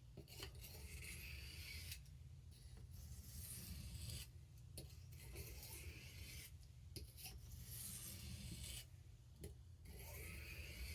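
Swiss Army knife blade drawn across a wet fine India (aluminium oxide) sharpening stone with light pressure. It gives a faint rasping hiss in even strokes, about five of them, each roughly a second long with short pauses between.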